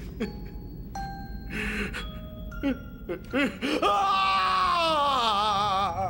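A man sobbing and gasping in grief, then about four seconds in letting out a long anguished wail that trembles and falls in pitch. Music with bell-like chime notes rings underneath.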